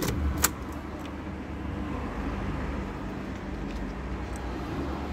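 2015 Ford Fiesta engine idling steadily, a sign that the newly programmed key has been accepted and the car starts. Two sharp clicks come in the first half-second, the second one the loudest sound.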